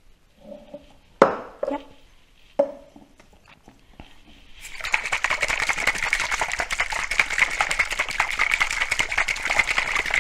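A few sharp knocks of a container being handled, then about six seconds of fast, continuous rattling as a dressing shaker is shaken to mix sesame dressing.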